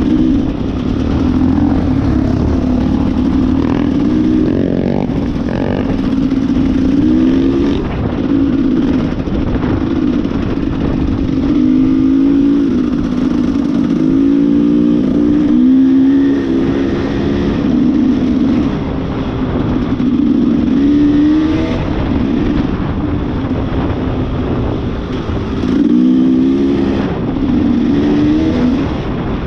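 Off-road motorcycle engine running under way, its note rising and falling again and again as the throttle is opened and shut.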